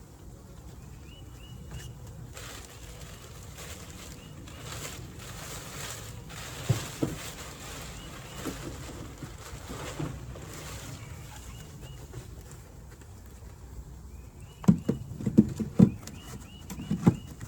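Beehive frames and boxes being handled: rustling and scraping through the middle, then a cluster of sharp wooden knocks near the end, with a bird chirping faintly now and then.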